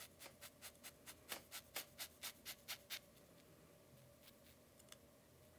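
Hair-shaping razor scraping down a twisted section of wet hair in about a dozen quick, faint strokes over the first three seconds.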